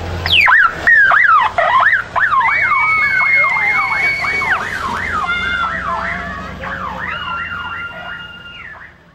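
Electronic siren sounding in quick rising and falling sweeps, mixed with held high steady tones, fading out near the end.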